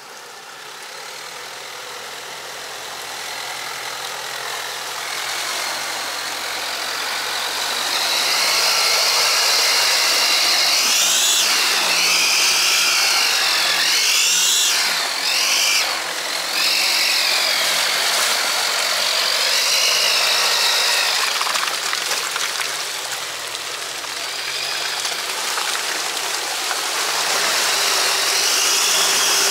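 An off-road vehicle's engine working hard, with a high whine that wavers up and down as the revs change. The sound builds over the first several seconds and stays loud from about eight seconds in.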